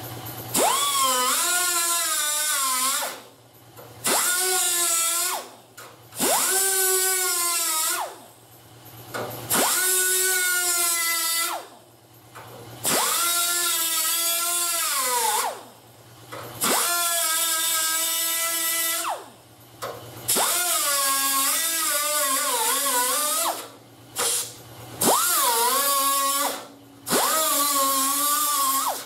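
Hand grinder grinding sheet steel in about ten bursts of one to three seconds each. The high whine climbs as the tool spins up at each start and drops away as it is let off.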